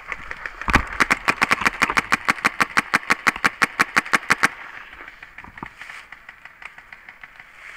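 Paintball marker firing a rapid stream of shots, about six or seven a second, for nearly four seconds, then stopping abruptly.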